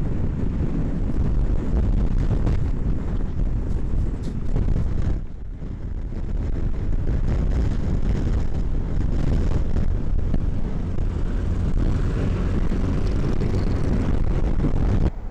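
A car driving on a windy day, with wind buffeting the microphone: a loud, rough, low rumble that dips briefly about five seconds in.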